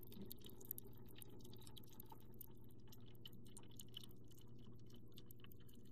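A Frigidaire refrigerator's door water dispenser runs water into a glass to flush a new filter. It makes a faint steady hum with light scattered ticks and crackles.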